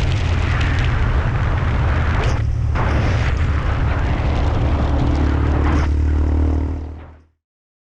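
Loud, steady rumble of wind buffeting the microphone, with vehicle noise underneath. It fades out about seven seconds in.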